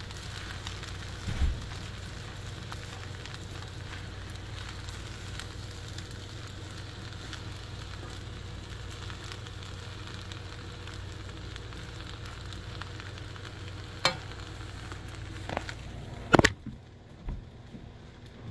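Fried rice sizzling in a HexClad hybrid wok as it is stirred with a spatula. A few sharp knocks on the pan come near the end, the loudest about sixteen seconds in, and the sizzle then drops away.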